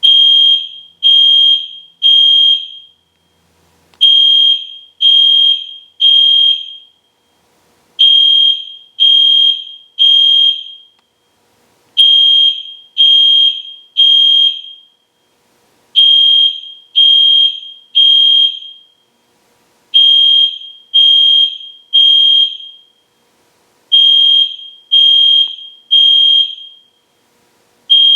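EST Genesis fire alarm horn sounding a high, loud electronic tone in the temporal-three evacuation pattern: three beeps about a second apart, then a pause, repeating every four seconds.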